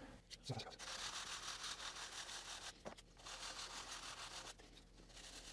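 Sanding block rubbing back and forth over a wooden edge in short strokes, a faint, even scrubbing in two runs with a brief pause near the middle.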